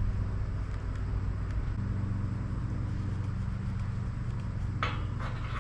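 An engine running steadily with an even low hum, with a couple of light clicks or clinks near the end.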